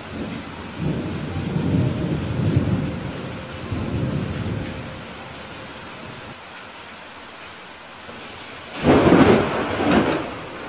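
Steady rain hissing, with a low rumble of thunder through the first half and a louder, sudden clap of thunder about nine seconds in.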